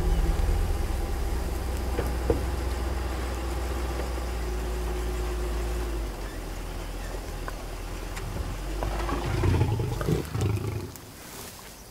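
Safari vehicle driving on a sandy bush track, its engine a steady low rumble that eases after about six seconds. About nine to eleven seconds in, a lion growls briefly.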